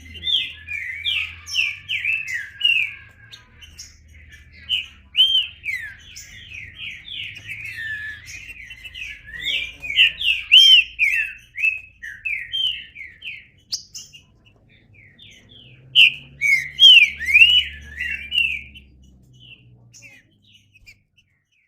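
Green-winged saltator (trinca-ferro) singing: fast runs of short slurred whistled notes, in three bouts with brief pauses between.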